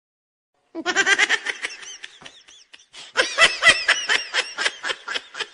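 High-pitched laughter in quick repeated bursts, starting after a moment of dead silence, easing briefly around the middle and then picking up again.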